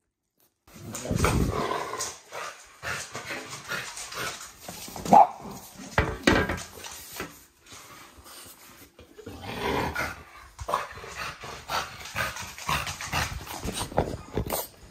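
French bulldog growling and making short noises at close range, with scattered knocks and rustles. The loudest is one sharp sound about five seconds in.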